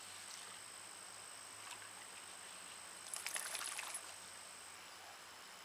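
Shovel working wet sand in shallow lake water: a brief splashy, gritty scraping about three seconds in, lasting about a second, over a faint steady hiss.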